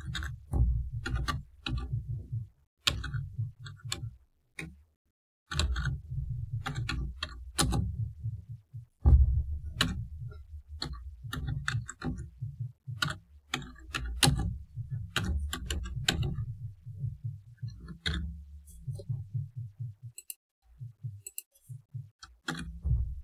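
Typing on a computer keyboard: a run of uneven keystrokes, each a click with a dull thud, broken by brief pauses about four seconds in and near the end.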